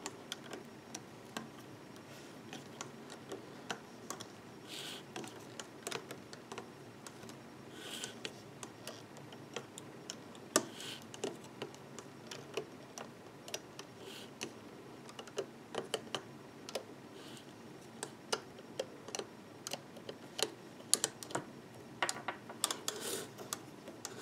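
A loom hook clicking and scraping against the plastic pegs of a rubber-band loom as loom bands are lifted and pulled over. The clicks are small and irregular, with a few brief rubbing sounds.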